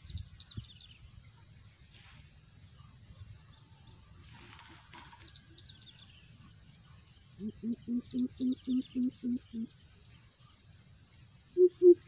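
Greater coucal giving a series of about ten low, evenly spaced hoots, rising slightly in pitch, about seven seconds in. A louder series of hoots starts near the end.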